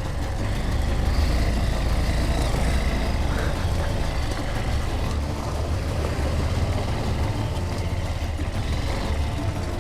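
Honda CRF230L's air-cooled single-cylinder four-stroke engine running steadily at low revs through its stock, quiet exhaust.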